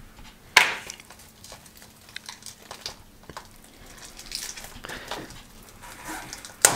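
Handling a shrink-wrapped plastic DVD case as it slides out of its cardboard slipcover: light rustling and scraping, with a sharp click about half a second in and a louder one near the end.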